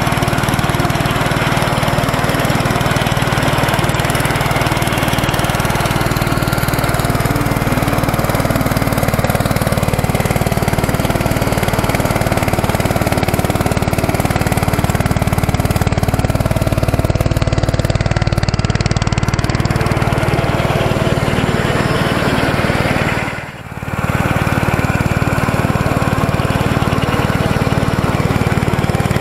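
Xingtai 120 compact tractor's single-cylinder diesel engine running steadily under load, driving a home-built belt-driven rotary mower deck through long grass. The sound drops out briefly about three-quarters of the way through.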